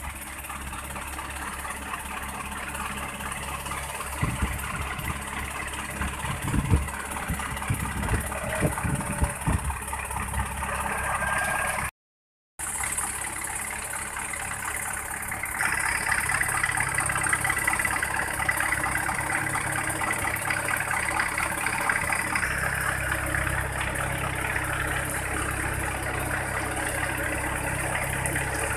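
Diesel engines of an asphalt paver and the dump truck feeding it running steadily, with a few low knocks in the first part. Partway through there is a short cut to silence, after which the running noise is louder.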